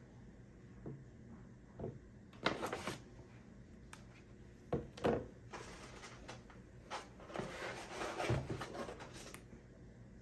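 Hand handling of boxes and packaging: a few scattered knocks and clatters, then several seconds of rustling.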